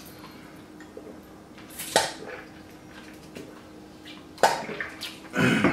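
Eating and drinking noises at a table as a man drinks from a bottle: short sharp smacks or clicks about two seconds in and again about four and a half seconds in, then a harsher burst near the end, over a faint steady hum.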